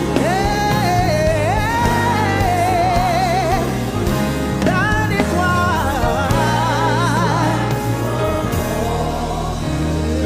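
Live gospel worship song: a lead singer's long held notes with a wide vibrato, over a band's steady bass and a choir. One sung phrase starts just after the beginning and another about five seconds in.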